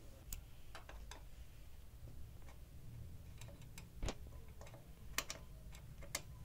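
Irregular small clicks and taps of a screwdriver tip working the red voltage selector switch on the back of a PC power supply's metal casing, with a few sharper clicks about four, five and six seconds in.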